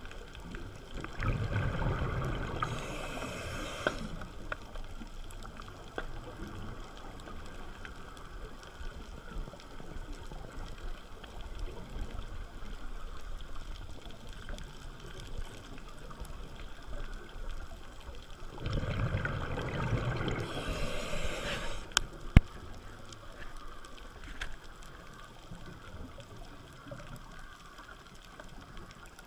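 Underwater sound of a scuba diver breathing through a regulator: two slow breaths, each a rush of exhaled bubbles with a brief high hiss at its end, about seventeen seconds apart, over a steady faint hiss of the water. A single sharp click comes just after the second breath.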